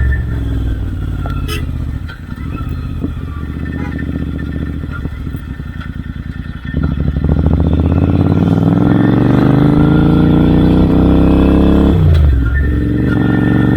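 Royal Enfield Interceptor 650 parallel-twin running through aftermarket Red Rooster Performance exhausts. It comes off the throttle and burbles with a run of sharp pops for several seconds. About seven seconds in it accelerates with a steadily rising pitch, with a short break for a gear change near the end.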